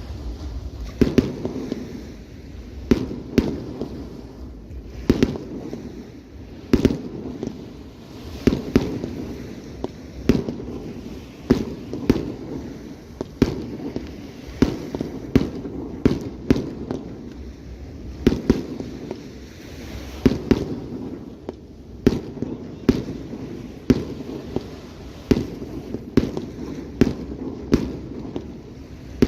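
Fireworks display: aerial shells bursting in a steady string of sharp bangs about one to two a second, each with a short echoing tail, over a low rumble.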